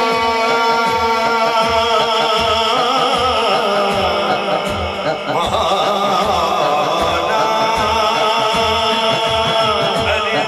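Male voices singing a Punjabi naat through microphones and a PA, over a sustained drone and a steady low beat.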